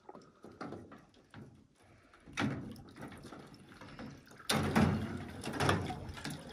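Water sloshing and splashing in a galvanized stock-tank cold plunge as a person moves in it and rises to climb out, loudest from about four and a half seconds in.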